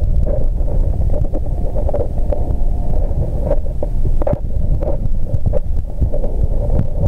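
Muffled underwater rumble from a waterproof camcorder's microphone submerged in a pond, with scattered short clicks and taps from the camera being handled.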